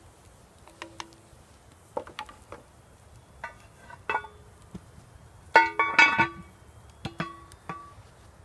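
Metal clinks and knocks on a Lodge cast iron Dutch oven as the stew is stirred with a wooden spoon and the heavy lid is set back on, each strike ringing briefly at the same pitch. The loudest clatter comes about halfway through, and a few lighter clinks follow.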